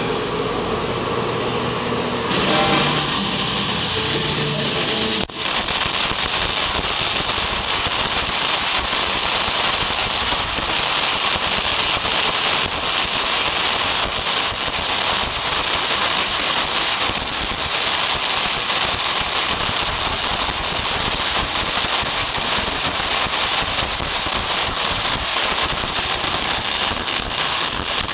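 MIG welding arc running a fillet weld with 1.0 mm wire at 32 volts and a wire speed of 500, settings in the spray-transfer range: a steady, dense crackling hiss that starts after a brief break about five seconds in. Before that, a steady hum with held tones runs over noise.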